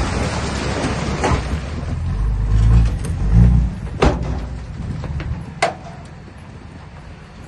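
Diesel engine of a heavy earthmoving machine running, swelling in louder surges as it takes load. Two sharp metallic clanks come about four and five and a half seconds in, and the engine quietens toward the end.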